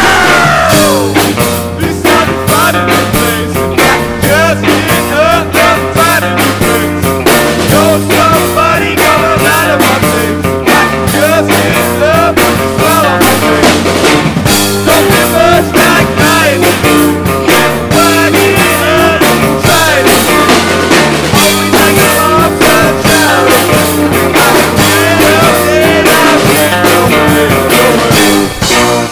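Rock music with drums, bass and guitar and a steady beat, which cuts off at the very end.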